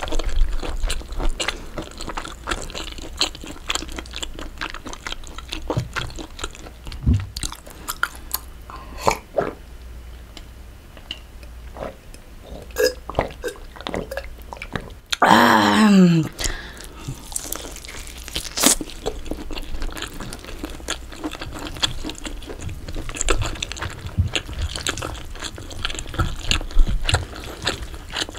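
Close-up mouth sounds of biting and chewing air-fried pork belly and cream pasta: many small wet clicks and smacks. About halfway through comes a short, loud voice sound sliding down in pitch.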